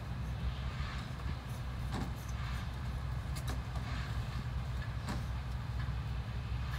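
Tractor's diesel engine idling with a steady low rumble, with a few faint clicks about two, three and a half and five seconds in.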